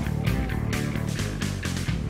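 Background rock music with guitar over a steady beat.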